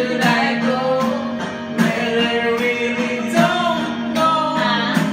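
Karaoke singing: a voice holding and bending sung notes over a backing track with guitar.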